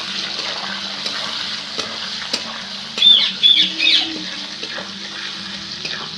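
Small whole boiled potatoes frying in hot oil in a wok, a steady sizzle, with a metal spatula stirring and clicking against the pan. About three seconds in, a few short high chirps are the loudest sounds.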